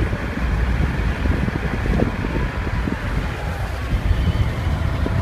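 Wind rushing past the open window of a moving car and buffeting the microphone, over a steady low road rumble.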